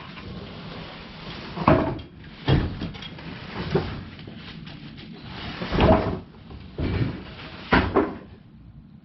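A steel tool chest being handled, with about six separate knocks and thumps like drawers or a lid being moved and shut.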